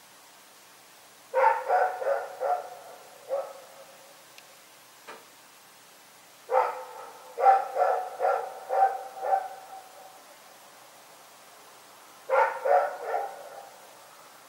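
A dog barking in three bouts of quick, sharp barks, four to seven barks in each, separated by pauses of a few seconds.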